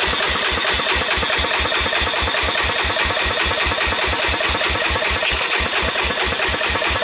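1998 Honda TRX300EX single-cylinder engine being cranked over for a compression test, carburetor off and gauge in the plug hole, in a fast, even rhythm of pulses. The gauge climbs to about 150 psi, a sign that the low compression has recovered.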